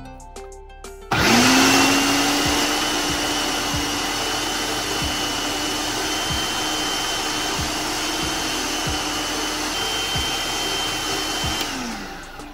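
Electric food processor motor starting about a second in and running steadily for about ten seconds while it minces ground beef with herbs, its steady hum riding over the grinding noise of the blade, then winding down with a falling pitch near the end.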